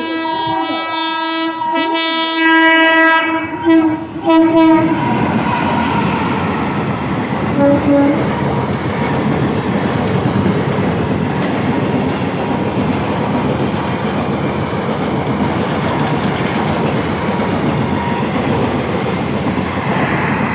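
Indian Railways locomotive horn sounding a long blast that ends in two short toots. Then the loud, steady rumble and clickety-clack of a through train passing at speed.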